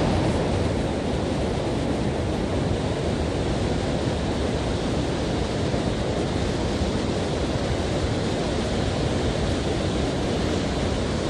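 Steady rush of river water pouring over a low weir and running through a shallow riffle.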